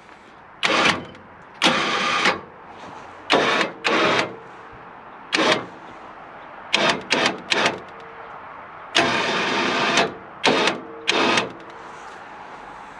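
Electric winch of a sawmill's up-down system running in about nine short bursts, from a fraction of a second to over a second each, with a whine under the noise, as the up-down button jogs the sawhead on its cables.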